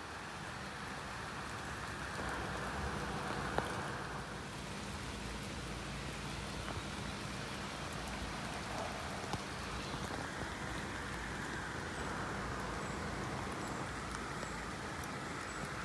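Steady rain falling on a wet road and level crossing, a soft even hiss that swells twice, with a few sharp ticks of drops landing close by.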